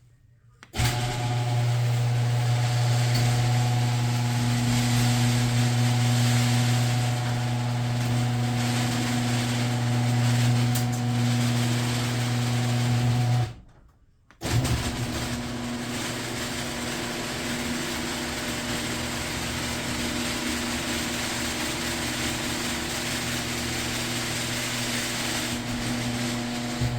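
Garage door opener motor running a door with a newly replaced torsion spring through one full travel, a steady hum that lasts about thirteen seconds, then stopping and running through a second full travel of about the same length, slightly quieter.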